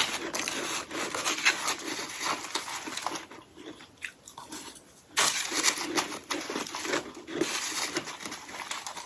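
Close-up crunching and chewing of hollow ice sticks coated in powdery freezer frost, a dense crackle of ice breaking between the teeth. It pauses for about two seconds partway through, then resumes.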